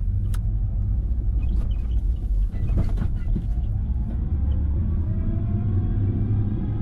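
Electric tricycle riding along: a steady low rumble of road and wind noise, with a few light clicks early and a faint motor whine rising in pitch about five seconds in.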